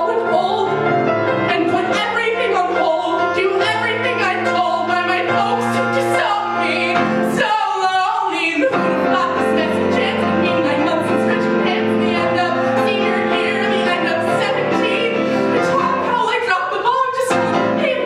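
A woman singing a pop musical-theatre song solo with piano accompaniment, her voice broken by a short pause about eight seconds in.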